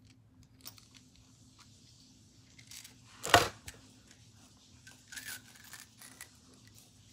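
Packaging and small craft items handled: faint rustles and light clicks, with one short, louder rip about three seconds in.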